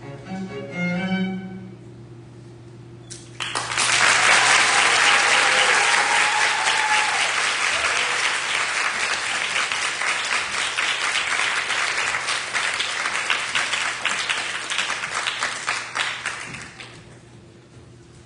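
A violin and cello ensemble sounds its last notes, then after about two seconds of hush an audience breaks into loud applause that lasts about thirteen seconds and dies away near the end.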